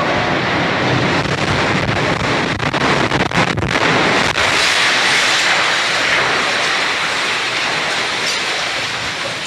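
Loud, sustained rushing roar of the World Trade Center's South Tower collapsing, with a run of sharp cracks in the middle; the roar tails off near the end.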